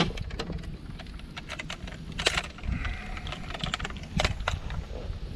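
Irregular light clicks and taps, several to a second, over a steady low rumble; the sharpest click comes right at the start.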